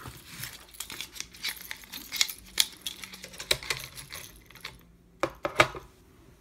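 Hard plastic knife-sheath parts and nylon webbing handled and set down on a digital scale: irregular sharp clicks, taps and clatters.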